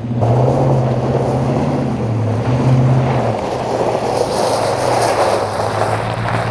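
Ram 1500's 5.7 HEMI V8 through a MagnaFlow Street Series cat-back exhaust, held at high revs while the rear tyres spin on gravel with a hiss of loose stones. About three seconds in the revs drop and the engine settles to a lower, steady note.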